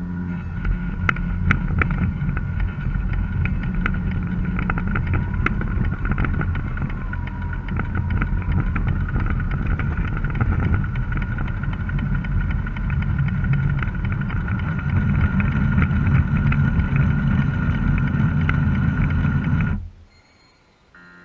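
Garden-railway model locomotive running through snow: a steady motor whine over a low rumble, with scattered clicks. It cuts off abruptly near the end.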